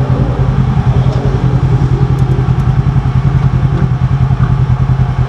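Polaris RZR side-by-side's engine idling steadily with an even, fast pulse while the machine sits stopped.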